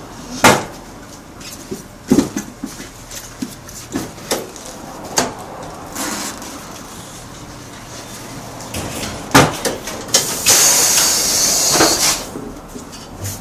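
Tyre-shop work noises: scattered sharp knocks and clanks, with a hiss lasting about a second and a half near the end.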